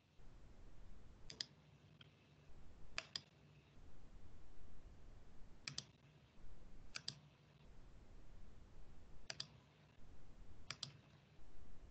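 Computer mouse clicking: about seven pairs of quick clicks, irregularly spaced a second or two apart.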